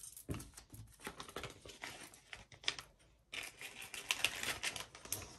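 Plastic packaging rustling and crinkling with many small clicks as jewelry is handled, pausing briefly about three seconds in before a thicker stretch of rustling.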